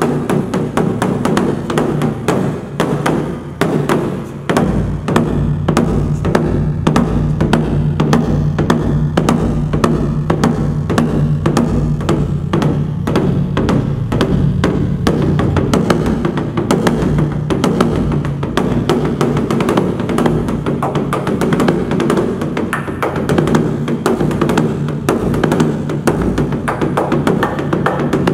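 Large Korean barrel drum (cheongo, 'heavenly drum') beaten on its hide head with two wooden sticks in a fast, even run of strokes, the drum's low ring carrying on beneath the beats.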